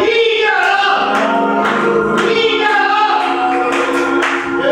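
Gospel singing with instrumental accompaniment: voices holding long, gliding sung notes.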